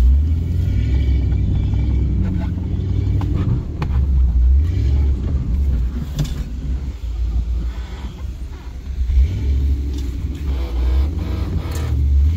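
Off-road vehicle's engine running under load with a low rumble as it attempts a difficult climb, easing off a little around the middle and pulling again after. A few sharp knocks come through over the engine.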